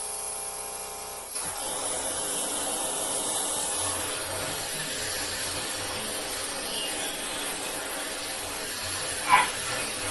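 Steady background hiss. A low buzzing hum stops about a second in, and a brief, louder sound comes near the end.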